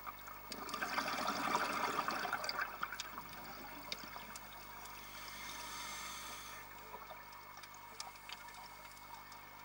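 Scuba diver breathing through a regulator underwater. About half a second in comes a gurgling rush of exhaled bubbles lasting two or three seconds, then a softer, higher hiss of the next breath, with a few faint clicks.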